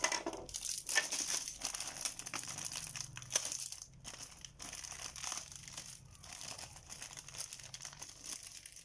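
A thin clear plastic packaging bag is crinkled and rustled as it is handled, giving a continuous rustle full of small crackles.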